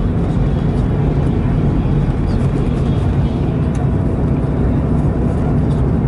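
Steady low rumble of a moving car's engine and tyres, heard from inside the cabin.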